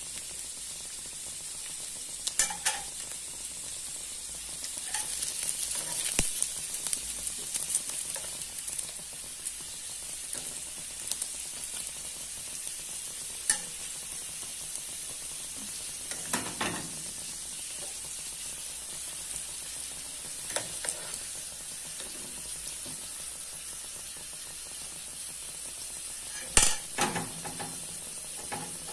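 Pastéis frying in shallow hot oil in a pan: a steady sizzle that swells for a few seconds about five seconds in, with a few sharp clicks scattered through, the loudest near the end.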